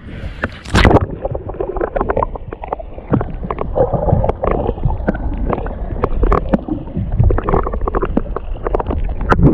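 Water sloshing and splashing against a kayak, with irregular knocks and wind rumble on the microphone. There is a loud thump about a second in.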